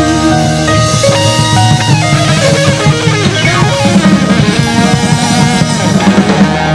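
Country rock band playing an instrumental passage: a melodic lead line of stepping, held notes, most likely electric guitar, over drums, bass guitar and keyboard.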